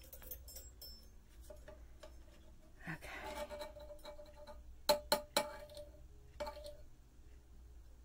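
Quiet handling noises, then a few light, sharp clinks with a short ring about five seconds in: a metal batik tjanting tool knocking against the pot of molten beeswax as it is dipped and lifted out.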